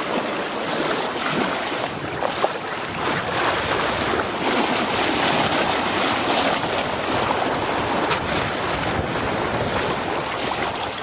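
Sea water rushing and splashing steadily along the bow and hull of a sailing yacht under way at speed, with wind buffeting the microphone.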